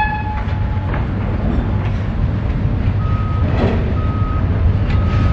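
Baldwin S12 diesel switcher locomotive running with a steady low rumble as it shoves a cut of boxcars. A brief tone sounds in the first second, and a backup alarm beeps about once a second from about three seconds in.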